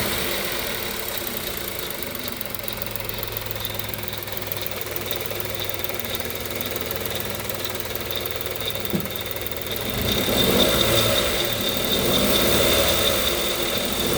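Hyundai/Kia G3LA 1.0-litre three-cylinder engine running with an irregular metallic ticking, the typical noise of a worn timing chain. The sound gets louder about ten seconds in.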